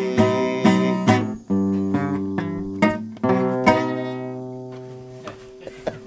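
A strummed string instrument plays the closing chords of a Spanish-language worship hymn, with a brief break partway through; the final chord rings out and fades away.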